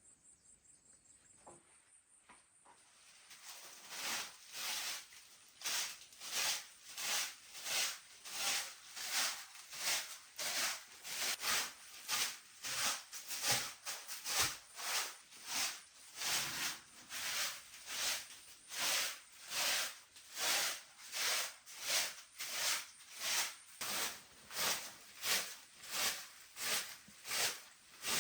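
Steady rhythm of scratchy swishing strokes, a little under two a second, starting about three seconds in; a stiff brush or broom working a surface sounds like this.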